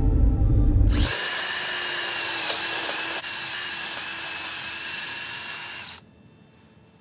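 Cordless drill running steadily with a high whine as it bores into a metal plate, starting about a second in and stopping abruptly about six seconds in. Low music plays for the first second, cut off as the drill starts.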